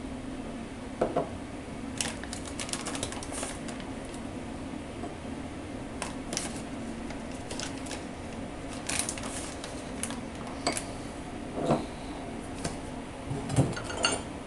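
Metal spoon clinking and tapping against a glass tumbler as heaped spoonfuls of potato starch are scooped from the bag and tipped in: irregular sharp clicks, some in quick clusters, over a steady low hum.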